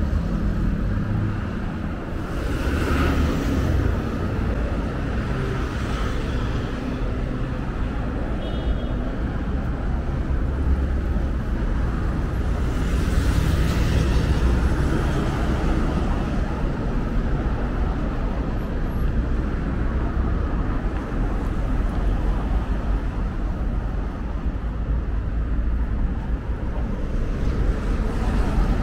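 Road traffic on a wide city street: a steady rumble of engines and tyres, with a vehicle passing close about two seconds in and another around thirteen seconds in.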